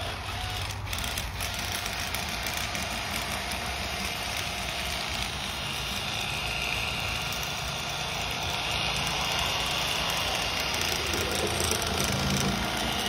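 A motor running steadily with a dense hiss, starting abruptly and growing slightly louder toward the end.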